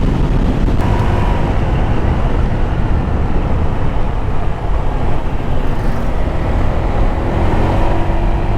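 Motorcycle engine running steadily at road speed, under a heavy rumble of wind and road noise on the rider's microphone.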